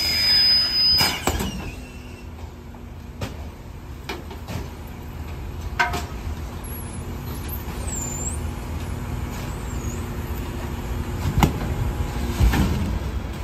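DSNY rear-loader garbage truck idling with a steady low engine hum, while trash bags are picked up and tossed into its open hopper with a few sharp knocks and thuds, the loudest near the end. A thin high steady whistle sounds over a louder first second, then stops.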